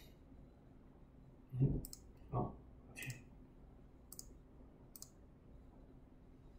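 Computer mouse clicking: four sharp clicks spread about a second apart. Two short dull thumps, the loudest sounds, come about one and a half and two and a half seconds in.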